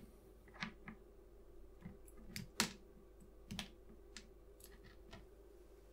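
Small clicks and rattles of alligator-clip test leads and an oscilloscope probe clip being unclipped and handled while an inductor is swapped out of the test circuit. About ten soft, separate clicks, the loudest about two and a half seconds in.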